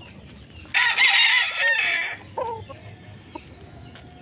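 A rooster crowing once, a call of about a second and a half with a wavering pitch, followed by a couple of short, softer calls.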